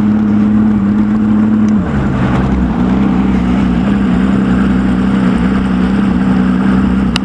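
Bass boat's outboard motor running steadily under way, its pitch dropping slightly about two seconds in and then holding.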